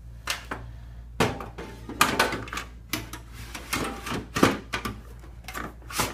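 Irregular knocks, clicks and scrapes of a DVD drive and metal computer-case parts being handled and fitted, about a dozen hits over a few seconds, with a steady low hum underneath.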